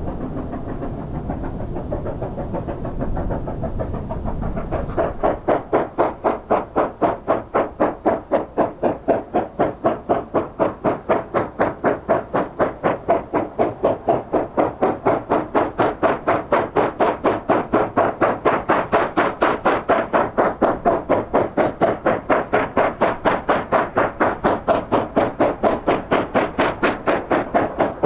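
China Railways JS class 2-8-2 steam locomotive working hard, its exhaust beating in a steady, even rhythm of about three to four chuffs a second. The beat starts about five seconds in, after a low rumble.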